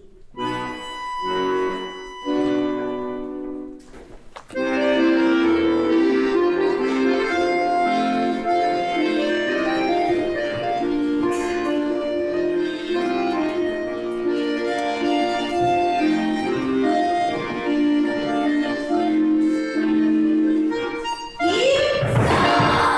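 Accordion playing live accompaniment for a dance class: a few separate chords, then from about four seconds in a continuous dance tune with chords. Near the end the tune stops and a short burst of noise follows.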